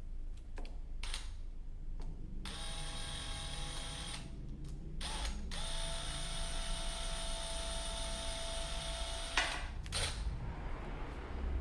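Small electric motor, like a cordless drill or driver, whining steadily in two runs: a short one of under two seconds and then a longer one of about four seconds, with a few clicks before and after.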